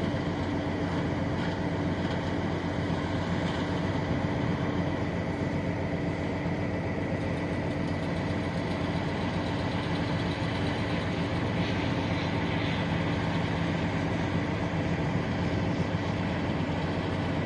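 Heavy diesel engine running steadily at an unchanging pitch, a low drone with no revving.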